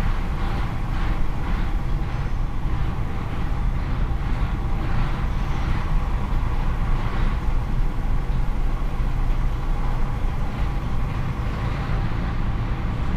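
Truck driving slowly across a ferry's vehicle deck: a steady low engine rumble with a run of short rattles about twice a second that fade out in the last few seconds.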